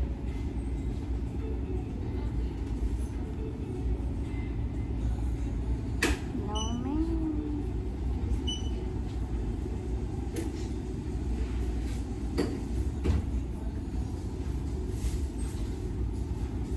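Steady low rumble of a car interior with the engine idling, with a few sharp clicks and a short rising tone about six seconds in.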